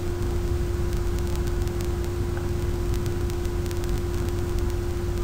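Steady background hiss and low rumble with a constant hum tone, sprinkled with faint clicks: the recording's own noise while nothing else sounds.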